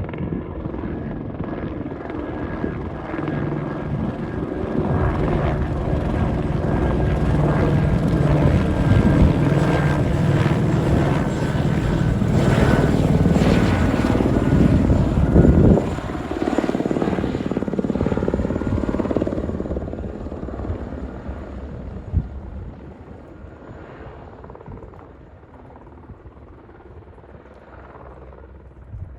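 Helicopter flying past, its rotor and engine growing louder to a peak about halfway through, then fading away as it moves off.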